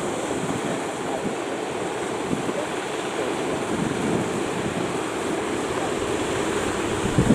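Surf breaking at an estuary mouth, with strong wind buffeting the microphone: a steady rushing noise, with a brief thump near the end.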